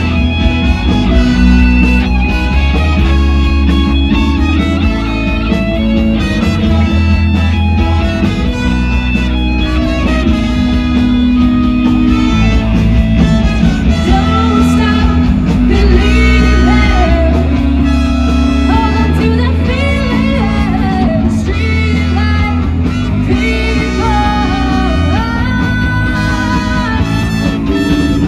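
Live rock band playing, guitar to the fore, over a steady bass.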